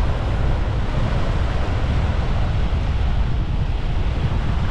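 Sea surf breaking and washing on a beach, a steady rush of waves, with wind buffeting the microphone as a low rumble underneath.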